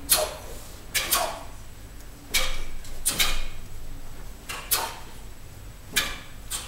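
Two TaeKwon-Do black belts performing patterns: about ten sharp, swishing snaps, often in pairs, as punches, blocks and kicks are executed.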